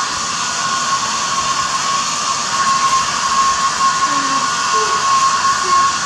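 Handheld hair dryer running steadily: a loud, even rush of blown air with a steady high whine from its motor.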